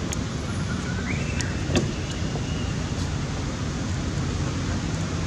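Steady outdoor background noise, a low rumble under an even hiss, with a few faint clicks and a thin high tone that rises and holds for about two seconds near the middle.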